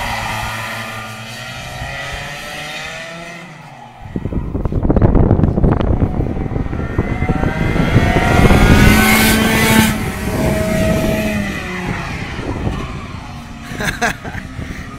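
Two-stroke 125 cc racing kart engines buzzing round the track, their pitch rising and falling through the corners and climbing as the karts accelerate past. A loud wind rush on the microphone covers much of the middle.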